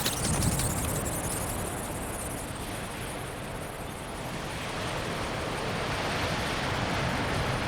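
Strong wind rushing over the microphone, an even noise that eases slightly midway and builds again.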